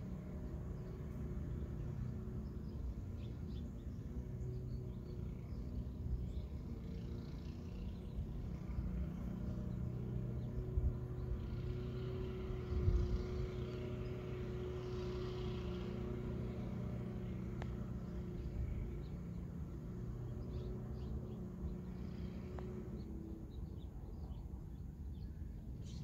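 Steady low rumble with a faint motor hum that swells a little in the middle, and a soft thump about thirteen seconds in.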